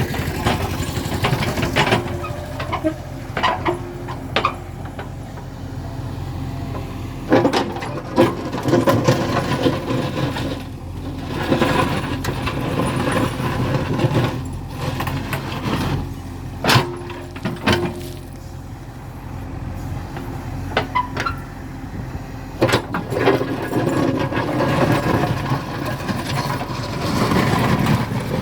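JCB 3DX backhoe loader's diesel engine running under load, its note rising and falling, with repeated sharp clanks and scraping as the bucket cuts into the road's bituminous surface and mud.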